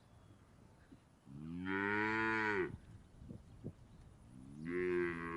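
A cow mooing twice: one moo of about a second and a half, then a second moo starting near the end.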